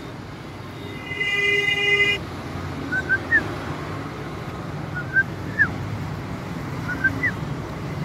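A vehicle horn sounds for about a second, then three short two-note chirps come about two seconds apart, over a steady traffic rumble.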